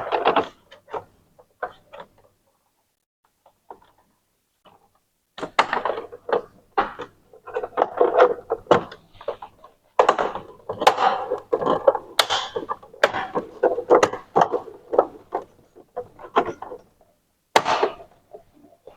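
Plastic parts of an Epson EcoTank printer being handled and fitted back by hand: a few taps, then from about five seconds in a rapid, uneven run of clicks, taps and knocks that thins out near the end.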